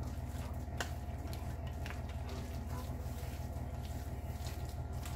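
A spoon stirring a thick, wet biscuit-and-chicken mixture in a glass bowl: soft squelching with a few light scrapes against the glass, over a steady low hum.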